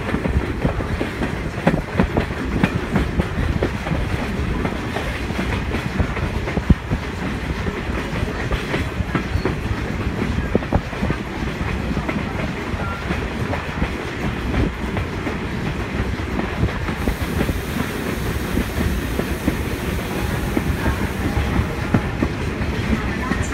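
Wheels of a passenger train coach rolling along the track with a steady rumble and a running clickety-clack of clicks over the rail joints.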